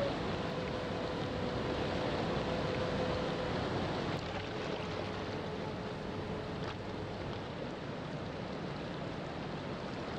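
Ocean surf washing steadily, with a faint long-held low note that drops a little lower about halfway through.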